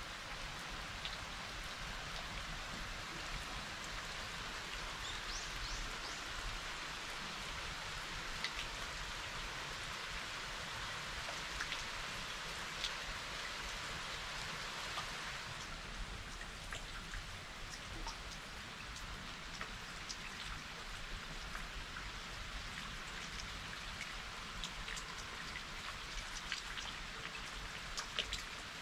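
Rain falling steadily, with scattered single drops ticking sharply on nearby surfaces.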